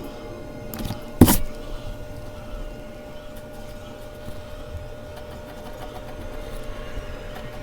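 Mechanical pencil scratching on Bristol paper, with one sharp knock about a second in, over a steady faint hum.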